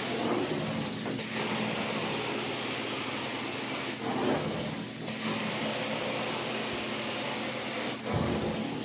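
Truck-mounted carpet-cleaning wand with a glide working carpet: a steady rushing hiss of hot water being sprayed and sucked back up through the wand, dipping briefly a few times as the strokes change.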